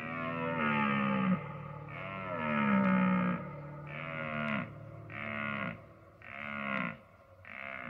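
Wildebeest (gnu) calling six times in a row. Each call drops in pitch; the first two are long and the last four shorter.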